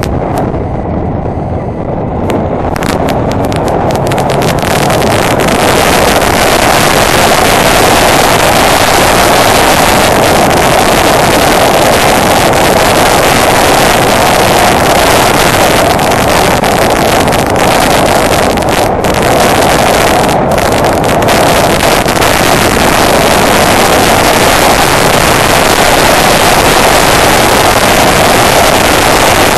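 Wind rushing over the microphone of a moving Honda Deauville NT650V motorcycle, with the bike's V-twin engine running underneath. The rush grows louder over the first five seconds or so, then stays steady.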